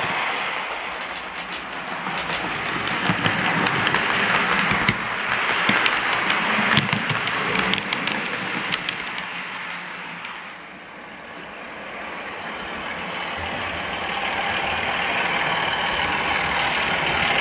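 OO gauge model train running: the wheels rumble and click over the track as coaches pass close. About ten seconds in it eases off, then a model diesel locomotive approaches and its running sound grows.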